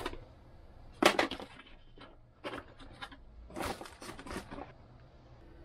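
A cardboard box and packaging being handled while an autopilot display is unpacked: a sharp knock about a second in, then several short rustles and clatters.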